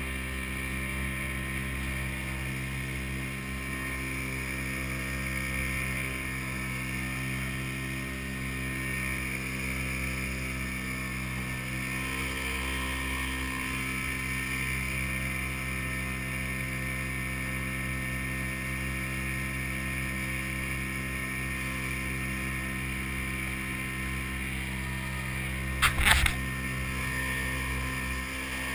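Small boat outboard motor running steadily under way, with water rushing along the hull. Near the end, a brief clatter of sharp knocks stands out as the loudest sound.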